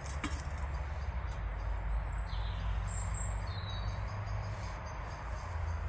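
Steady low rumble of outdoor background noise with a few faint, short bird chirps about two to three seconds in.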